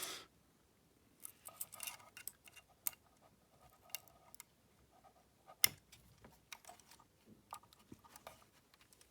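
Faint, scattered clicks and taps from a Canon Canonet 28 compact film camera being handled and its controls worked, with one sharper click a little past halfway. The camera seems not to work as it should.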